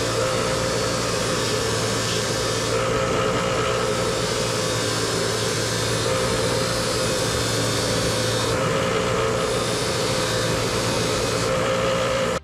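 Bench grinder running with a small steel brake part held against its spinning wheel: a steady motor hum under a grinding hiss that strengthens and eases a few times as the part is pressed and turned.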